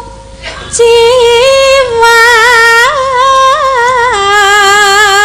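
A sinden singing a Javanese tembang: one high woman's voice holding long notes with a strong vibrato and small ornamental turns. After a short break near the start the line resumes, and about four seconds in it steps down to a lower note that it holds.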